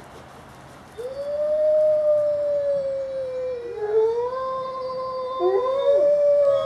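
Gray wolves howling: one long, steady howl begins about a second in, a second, higher howl joins about halfway through, and more voices break in near the end.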